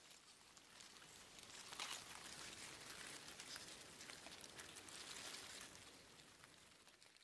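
Faint rain, a soft hiss of falling rain with scattered drop ticks, fading out near the end.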